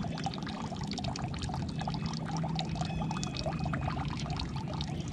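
Water sloshing and trickling against a boat's hull, a continuous patter of small splashes, over a steady low hum.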